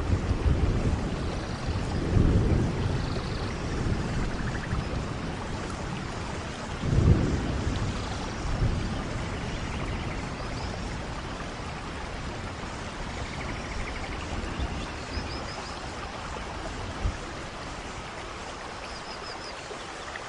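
Steady rainfall with low rumbles of thunder, the loudest about two and seven seconds in, growing quieter later. A few faint bird chirps come through the rain in the second half.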